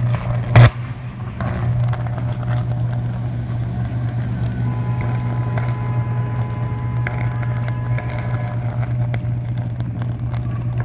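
Live power line on a broken hydro pole arcing, with a loud, steady low electrical buzz throughout and one sharp, very loud bang of an arc flash about half a second in.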